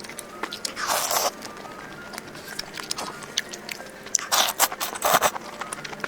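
Close-miked crunching and chewing of crisp food, with a loud crunchy bite about a second in and another cluster of crunches around four to five seconds in, over faint background music.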